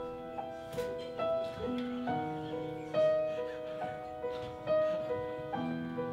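Grand piano playing a slow ballad introduction: a melody of single struck notes over held chords, the chords changing twice.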